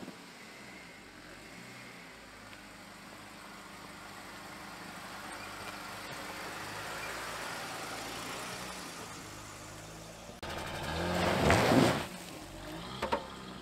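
Jeep Wrangler's V6 engine running as the Jeep drives slowly past, its sound swelling and then fading. After a sudden change, a louder rush of tyres rolling over a leaf-covered dirt trail close by peaks for about a second near the end, followed by two sharp clicks.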